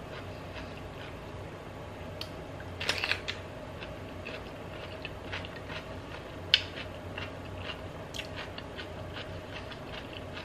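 Close-up eating: a crisp bite into a raw mini cucumber topped with cottage cheese and mustard about three seconds in, then chewing with small wet mouth clicks and a sharper crunch a little past halfway.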